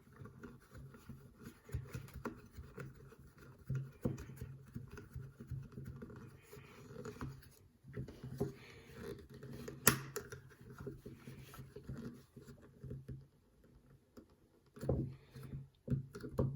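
Small parts being handled and twisted together by hand, with scattered scrapes and light clicks and one sharper click about ten seconds in, over a faint steady low hum.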